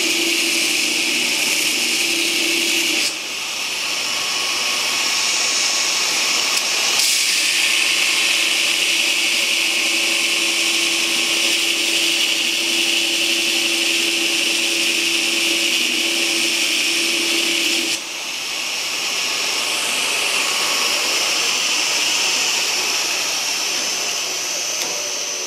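Knife-making belt grinder running at full speed with steel pressed against the belt: a steady, loud grinding that breaks off briefly about three seconds in and again past the middle. Near the end the grinder is switched off and the sound fades.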